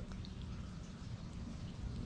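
Low, steady background hum with a few faint small ticks.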